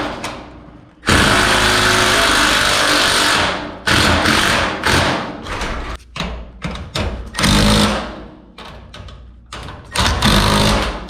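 Cordless impact driver hammering fasteners into a garage door's top bracket: one long run of a few seconds about a second in, then several shorter bursts.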